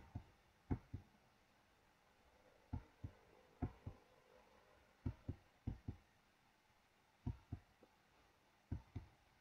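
Computer keyboard keystrokes: the L key pressed about seven times at irregular intervals, each press a quick pair of clicks as the key goes down and comes back up.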